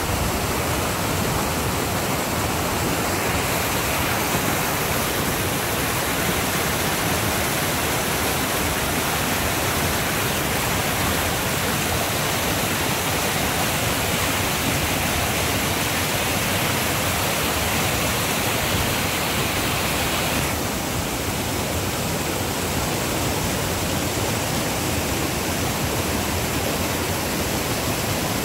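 Rain-swollen creek rushing through rapids, a steady loud wash of churning water; the hiss eases a little about twenty seconds in.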